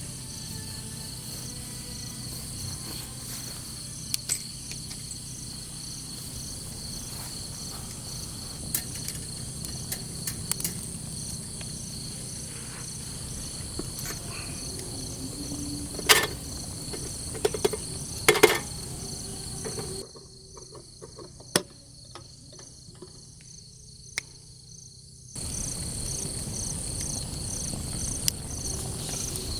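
A steady chorus of night insects chirping in fast pulses over a low background hiss, with a few sharp knocks, the loudest two about halfway through. The chorus and hiss cut out for several seconds a little past the middle, then return.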